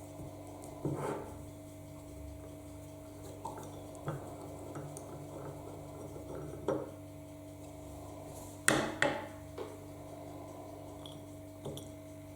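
Metal clinks and knocks as the parts of an old doorbell are handled and set down: half a dozen separate knocks, the loudest two close together about nine seconds in, over a steady low hum.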